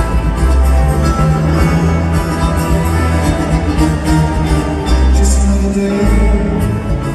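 A live band plays a rock song: acoustic guitar and electric slide guitar over a steady bass line.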